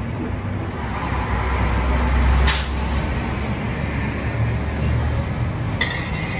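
Low engine rumble of street traffic, a heavy vehicle swelling to its loudest about two and a half seconds in, where a short sharp hiss cuts through. A brief high squeal near the end.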